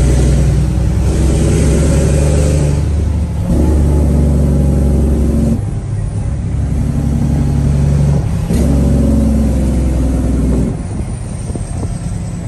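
Dump truck's diesel engine running under load, its pitch holding steady for a few seconds at a time and then changing, four times in all; the sound cuts off abruptly at the end.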